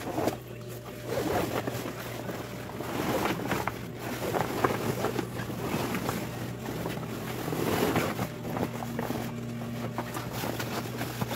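Brother industrial sewing machine stitching sailcloth in short bursts, its motor humming steadily underneath.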